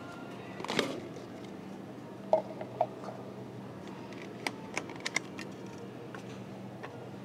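Disposable coffee cups and plastic lids being handled at a self-service coffee machine: a paper cup scraping out of its holder, two light hollow knocks, then a quick run of sharp clicks and taps as a plastic lid is taken and the cup set down on the metal drip tray. A faint steady low hum lies underneath.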